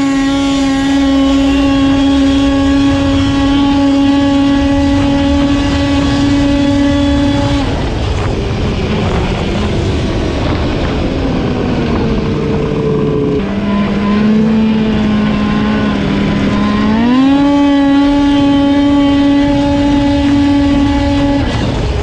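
Snowmobile's two-stroke engine running at high revs under throttle, about 8,300 rpm, with a steady high drone. About eight seconds in the rider eases off and the note falls to a lower, rougher running. Near seventeen seconds the engine climbs back up and holds high again, then drops away just before the end.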